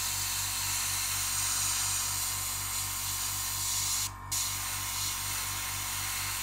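Gravity-feed airbrush spraying thinned paint: a steady hiss of air that cuts out briefly about four seconds in, then resumes, over a steady low hum.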